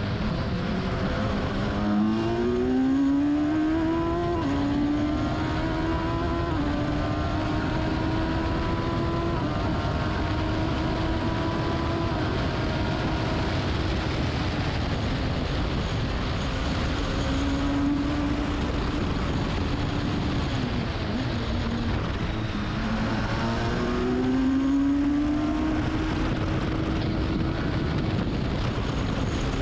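Race car engine under hard acceleration: the revs climb and it changes up a couple of times early on, runs at a steady pitch for a long stretch, drops back through the gears about two-thirds of the way through, then climbs again. A constant rush of wind and road noise runs under it.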